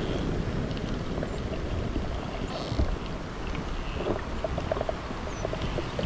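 Underwater ambience: a steady low rush of water noise with faint scattered clicks.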